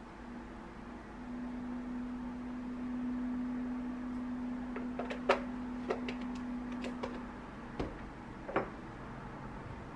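Plastic milk-carton cap and carton being handled: a run of short sharp clicks about halfway through, then a knock or two as the carton is set down on the counter. A steady low hum runs underneath.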